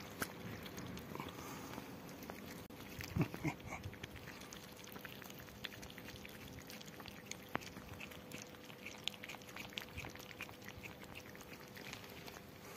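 Kittens chewing and smacking on chunks of food: a scatter of small, irregular wet clicks, with a few louder knocks about three seconds in.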